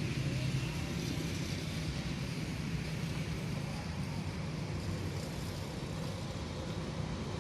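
A steady low engine hum, like a motor vehicle running nearby, under a continuous haze of outdoor noise.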